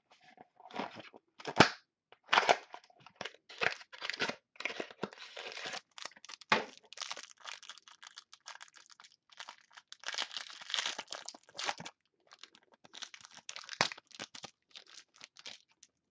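Foil wrapper of a football trading-card pack being torn open and crinkled by hand, with irregular crackling and a few sharp snaps.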